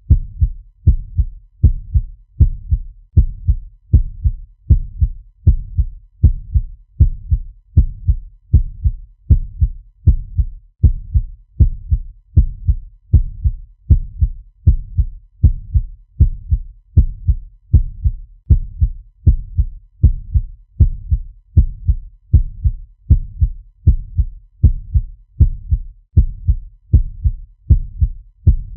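Fast heartbeat sound effect: low, dull beats repeating at a quick, steady rate.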